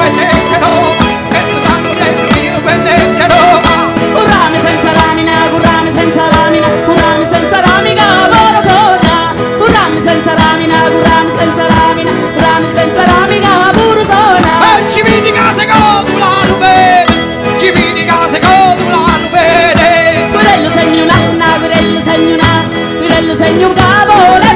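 Live southern Italian folk music in the pizzica/taranta style: several tamburelli, large frame drums with jingles, beating a steady rhythm under a sung melody by a woman's voice.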